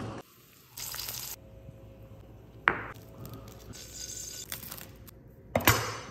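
A sharp tap about two and a half seconds in. Near the end, a kitchen knife crunches through toasted bread and knocks on the wooden cutting board; this is the loudest sound.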